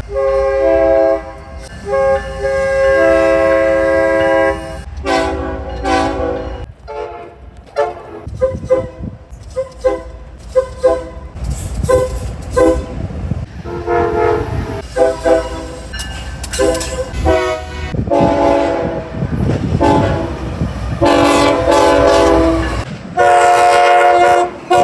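Train air horns sounding a chord in a run of blasts: long blasts near the start and end, and a quick string of short toots in the middle. A train's low rumble runs underneath and fades out shortly before the end.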